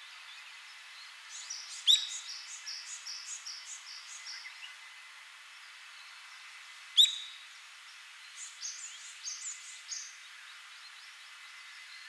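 Ishigaki Brown-eared Bulbul calling: two loud, sharp downward-sweeping notes about five seconds apart, each followed by a run of short, high, repeated notes at about three or four a second, over a steady background hiss.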